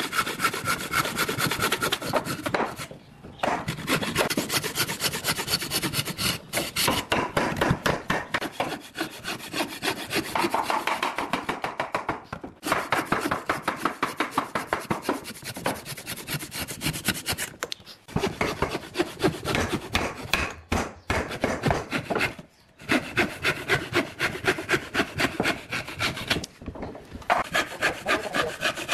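A hand tool worked fast back and forth across wood, stroke after stroke, like sawing or rasping, with short breaks every few seconds.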